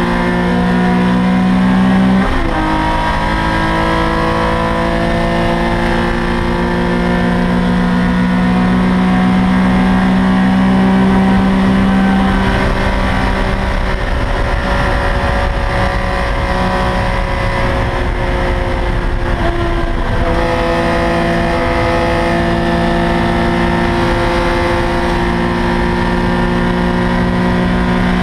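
Porsche 911 ST's air-cooled flat-six heard from inside the cockpit, running hard near 7,000 rpm. The pitch drops sharply about two seconds in, as at an upshift, then rises and falls slowly with speed.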